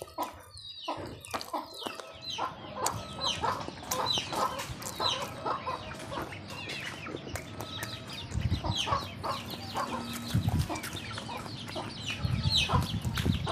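Domestic chickens clucking repeatedly, many short falling calls one after another. A low rumble joins about eight seconds in and again near the end.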